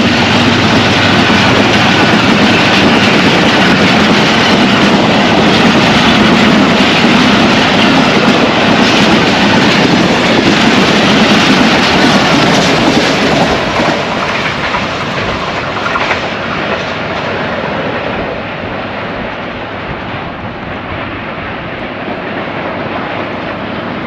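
Coaches of a diesel-hauled express passenger train rushing past at speed, a loud rumble of wheels on the rails with a few sharp clacks. The noise fades from about fourteen seconds in as the end of the train goes by and draws away.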